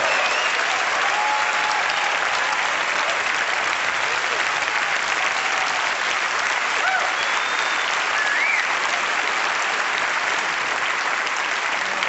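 Large auditorium audience giving a standing ovation, steady dense applause with a few cheers rising above it.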